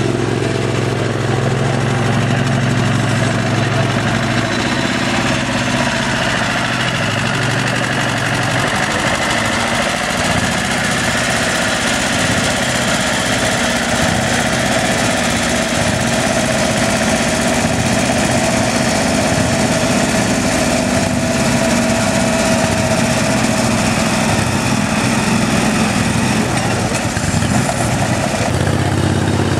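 Small garden tractor engine running steadily, then working harder and unevenly from about eight seconds in as it drags a weight sled slowly along a dirt pulling track, settling back near the end.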